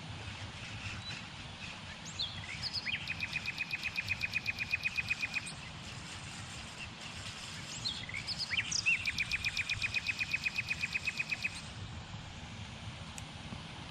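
A small bird sings two phrases, each a few quick sweeping notes leading into an even, fast trill of about ten notes a second that lasts about three seconds, the first starting a couple of seconds in and the second about eight seconds in. A steady low outdoor rumble runs underneath.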